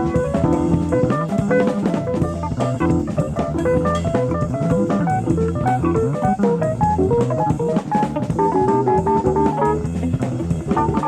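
Live jazz-fusion band playing fast, busy lines over bass and a drum kit, with guitar prominent, heard from a 1970s FM radio broadcast recorded on cassette tape.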